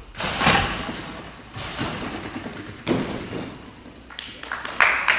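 A gymnast bouncing on a double mini-trampoline and landing on the mat: a series of about four heavy thuds, each with a rushing spread of noise.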